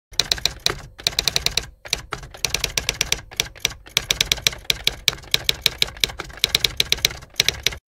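Typewriter keys clacking in quick runs of keystrokes broken by short pauses, a typing sound effect laid under text that spells itself out letter by letter.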